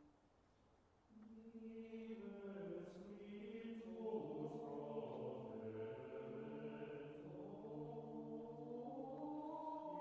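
Slow choral chant: voices singing long held notes that change slowly, coming in about a second in after a near-silent moment.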